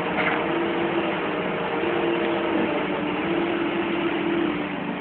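Komatsu PC200 hydraulic excavator's diesel engine running steadily while the machine balances tilted on one track, with a humming tone that comes and goes three times.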